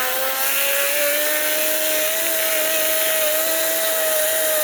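Chainsaw held at full throttle, cutting into the trunk of a fallen, woodpecker-riddled tree, with a steady high whine that wavers slightly under load.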